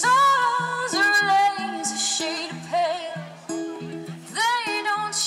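Background music: a song with a picked guitar pattern and a voice holding long, wavering melodic notes.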